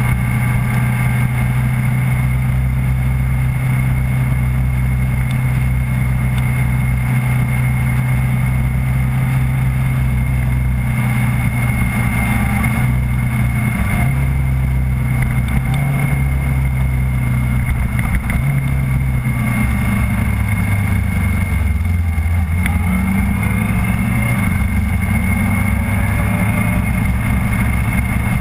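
Onboard sound of the camera vehicle's engine running steadily at moderate revs on a slow lap, its pitch stepping up and down several times in the second half as speed and gears change. A thin steady high whine and a haze of wind and road noise run under it.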